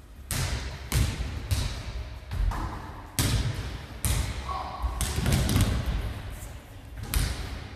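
Basketball thudding on a wooden gym floor as it is dribbled and passed. There are irregular thuds about once a second, with an echo from the hall.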